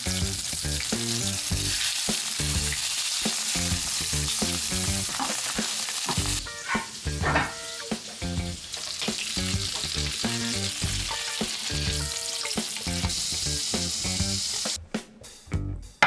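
Food frying in a pan, a steady sizzle that cuts off about a second before the end, with light background music underneath.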